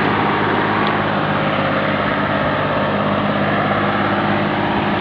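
Fiat 480 tractor's diesel engine running steadily at high throttle, working hard to pull a heavily loaded sugarcane trolley through soft, wet ground.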